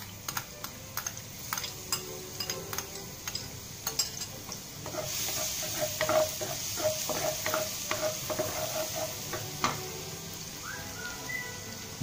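Minced garlic sizzling in hot oil in a wok while a wooden spatula stirs it, tapping and scraping against the pan. The sizzle grows louder about five seconds in, with a quick run of spatula knocks after that.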